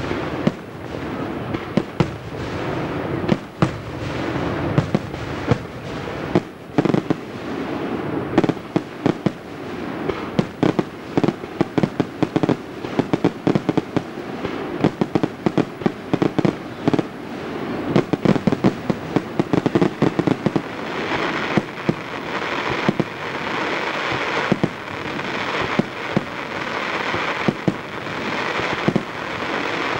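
Aerial fireworks display: a rapid, irregular string of shell bursts and bangs. From about two-thirds of the way through, a denser, higher hiss fills in between the bangs.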